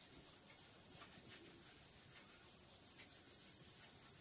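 Board duster wiping a whiteboard clean: faint, repeated rubbing strokes.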